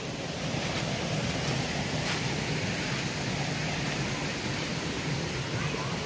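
Steady rushing of a small forest stream and its little cascades, with a few faint rustles of footsteps on dry leaf litter.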